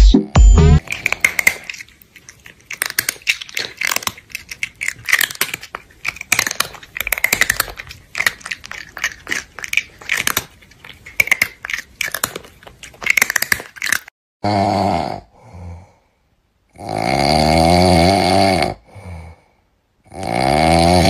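Crunchy chewing and munching, many quick wet clicks for about thirteen seconds. Then loud snoring in three long snores, each with a wavering buzzy tone.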